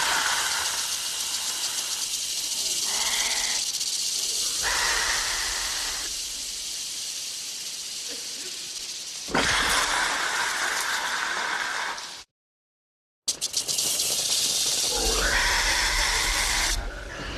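Dilophosaurus creature sound effect: a long, breathy hiss with shifting mid tones, cut by about a second of silence around twelve seconds in, after which the hissing starts again.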